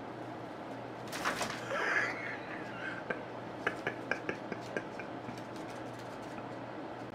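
Pet birds: a brief call about a second in, then a run of short sharp clicks and chirps between about three and five seconds in, over a steady low hum.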